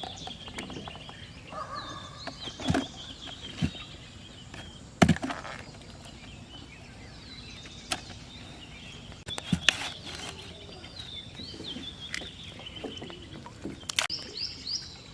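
Birds calling over and over with high chirping, gliding notes, broken by a few short sharp knocks or splashes, the loudest about five seconds in.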